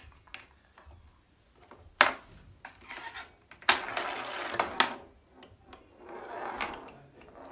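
A ball shot up a wooden bagatelle board, knocking against the pins and rattling as it rolls across the board. There are sharp knocks about two seconds in and near four seconds, with a rattling run after the second knock and a softer one near the end.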